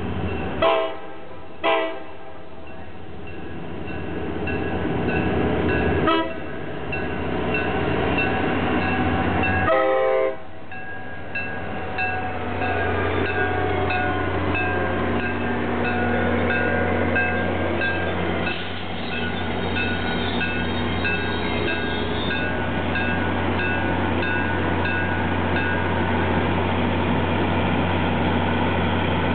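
Diesel locomotive air horn sounding several blasts: two short ones, then longer ones ending about ten seconds in. After that the EMD GP40's two-stroke diesel drones steadily, with a grade-crossing bell ringing at an even pace through the middle of the stretch.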